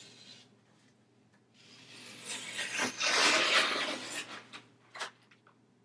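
Protective plastic film being peeled off the back of a clear acrylic piece: a rasping peel that builds over about two seconds and then fades, followed by a few small clicks.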